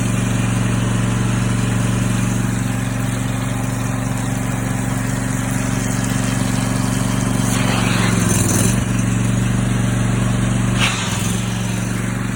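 Honda GX690 V-twin engine running steadily, driving a belt-drive pressure-washer pump under a broad hiss. About eight seconds in, and again briefly about eleven seconds in, the engine pitch sags with a burst of brighter hiss.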